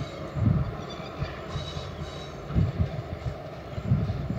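Distant diesel locomotives of a TasRail empty log train running, with a faint high squeal in the first two seconds or so. Irregular low buffeting rumble is the loudest sound throughout.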